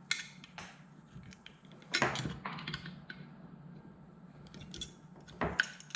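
Small metal parts clicking and knocking as an electronic ignition module is seated in a distributor body, with a louder clatter about two seconds in and another near the end.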